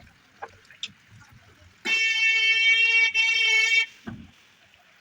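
A vehicle horn honking in one steady high note for about two seconds, broken by a tiny gap just before the end, so it sounds as two honks close together.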